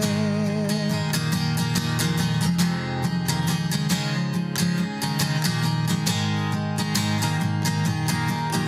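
Instrumental break in a slow country-style ballad, with acoustic guitar strumming in a steady rhythm over sustained bass notes. The singer's held note with vibrato fades out about a second in.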